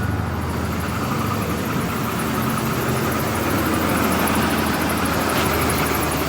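2000 GMC Sierra's 5.3-litre V8 idling steadily just after a cold start.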